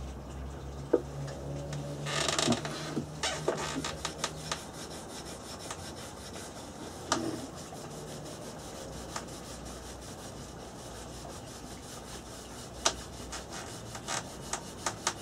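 Cloth rag rubbing sanding sealer into a yew picture frame: a steady scrubbing of cloth on wood with a few light knocks as the frame is handled.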